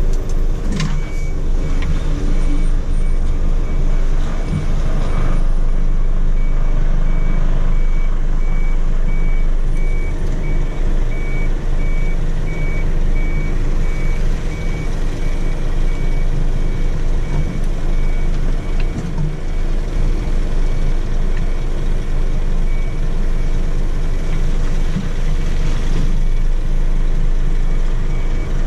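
Truck reversing alarm beeping at a steady, even pace from about two seconds in, over the truck's engine running at low speed, heard from inside the cab.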